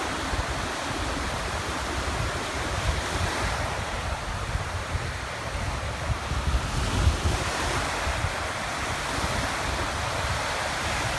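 Small waves breaking and washing along the shore in a steady surf hiss, with strong wind buffeting the microphone in a gusty low rumble.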